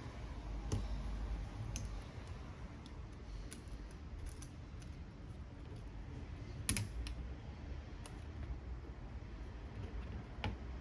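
Irregular small clicks and taps of repair tools and iPhone X parts being handled, with fainter ticks in between. The loudest click comes about two-thirds of the way through.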